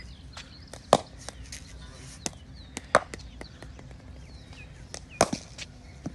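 Cricket ball thrown down onto a concrete net pitch and struck by the bat: three sharp knocks about two seconds apart, the last followed by a couple of smaller knocks.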